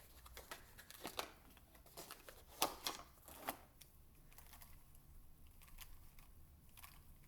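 Faint handling sounds of a plastic Gear Cube puzzle: a few scattered sharp clicks, the loudest about two and a half seconds in, with soft crinkling between them.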